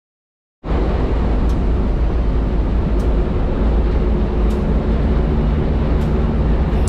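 An engine running steadily, a loud low drone that starts abruptly about half a second in, with faint high ticks about every second and a half.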